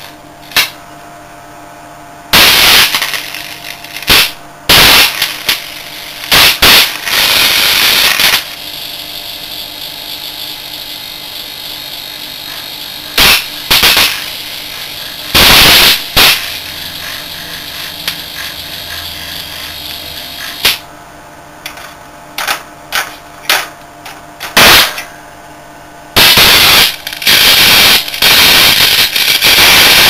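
High-voltage arcing from a rig of microwave-oven transformers as a probe is held against the internals of a waterlogged photocopier: loud, irregular crackling bursts of arc, some brief snaps and some lasting a second or more. A steady transformer hum runs between the bursts. Near the end the arc holds in one long, loud, continuous buzz.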